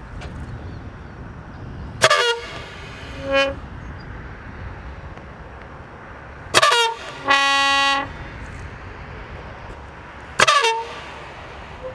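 The Dominator's compressed-air probe cannons firing three times, about four seconds apart: each shot a sharp blast that falls quickly in pitch. A steady horn tone sounds briefly after the first shot and for nearly a second after the second.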